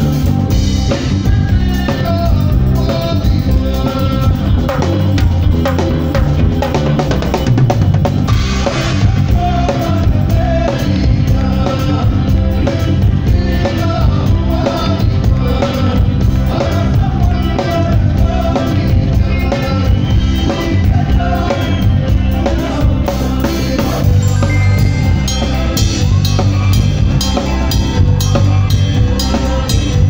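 A live band playing amplified on stage: a drum kit leads, with snare and bass drum hits, over bass guitar and electric guitar.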